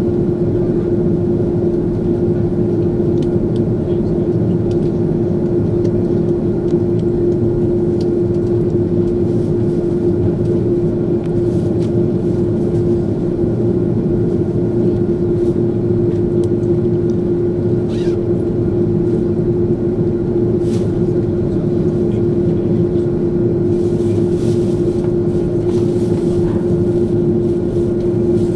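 Cabin noise inside an Airbus A330-200 taxiing: a steady engine hum with one constant tone running through it, and a few faint clicks and rattles.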